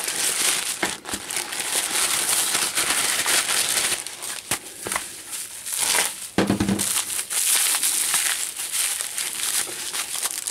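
Plastic packaging crinkling and rustling continuously as a grey plastic mailer bag and bubble wrap are pulled open and unwrapped by hand. A brief dull thump comes about two-thirds of the way through.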